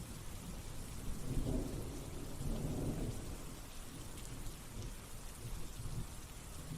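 Steady background hiss with a few soft low rumbles, about one and a half and three seconds in.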